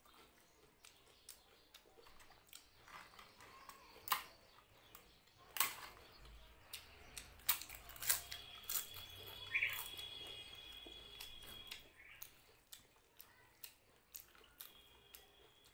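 Close-miked eating: fingers mixing rice and dal, and crisp crunches as a papad (papadum) is bitten and chewed, with several sharp cracks in the middle.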